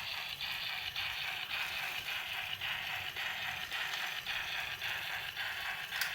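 Plarail battery-powered toy train running on plastic track: a steady motor whir and wheel rattle with regular clicks, about three a second.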